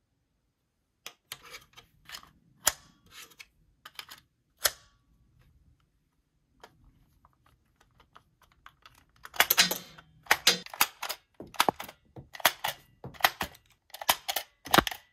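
Sharp clicks and rattles, like hard small parts being handled: scattered at first, then coming in quick clusters about twice a second over the last six seconds.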